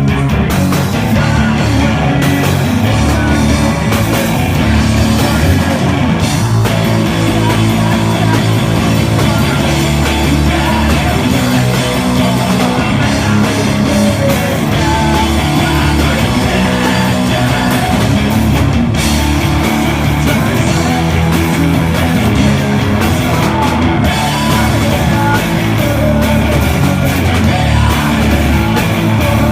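Loud rock band playing live: a dense, continuous wall of electric guitars and drums in a punk style.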